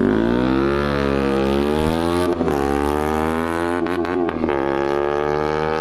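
Sport motorcycle with an aftermarket Akrapovic dual exhaust accelerating hard away, its exhaust note rising. The note breaks and drops about two seconds in and again around four seconds in, as it shifts up through the gears.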